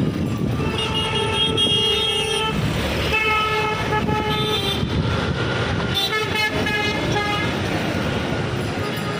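Vehicle horns honking in busy street traffic: a long held horn about a second in, another around three seconds in, then a quick run of short toots around six seconds, over a steady rumble of traffic.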